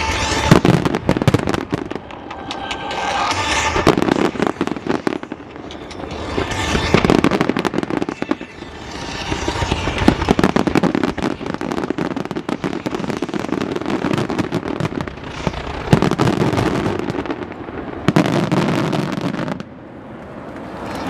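Fireworks barrage: many shells and mines going off at once, with booms and dense crackling that swell in waves every few seconds. It dies down sharply near the end.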